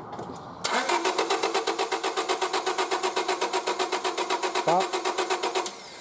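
1999 Honda Civic's 1.6-litre VTEC single-overhead-cam four-cylinder being cranked by the starter, turning over with a fast, even rhythm without catching, then cutting off suddenly. It does not fire because there is no spark from the ignition coil, which the mechanic takes for a failed coil.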